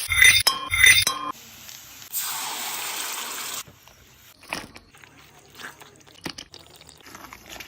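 Cooking sounds in a kitchen: two loud knocks at the start, then a steady hiss lasting about a second and a half, then scattered light clinks of utensils.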